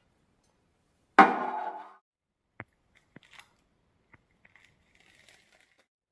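A hard kitchen item strikes a surface with a sharp clank that rings for under a second, followed by a few light clicks and taps.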